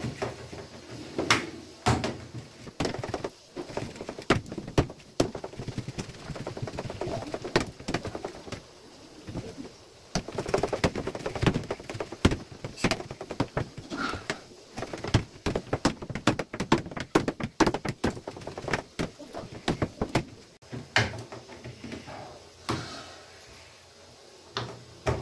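A hand beating thick flour-and-jaggery batter in a stainless steel bowl: fast, irregular wet slaps and knocks of batter and hand against the bowl, easing off near the end. The batter is being beaten until it is stiff enough not to break when lifted.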